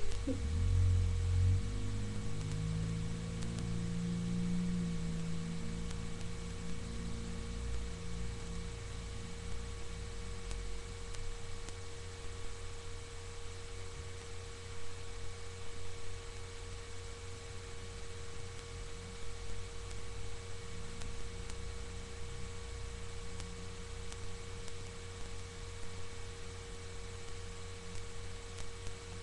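Steady electrical hum with a constant single tone held unchanged; a faint low pitched sound drifts in during the first several seconds.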